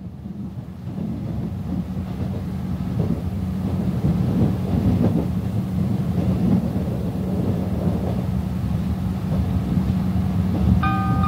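Running noise of a 381-series limited express electric train heard inside the passenger car: a steady rumble of wheels on rail with a low hum, growing louder over the first few seconds and then holding steady. Near the end, an electronic chime melody starts over the running noise, the chime that precedes an onboard announcement.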